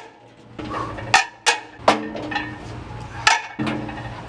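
Iron weight plates clanking against each other and the loading horns as they are slid onto a plate-loaded leg press: four sharp metallic knocks, each followed by a brief ringing.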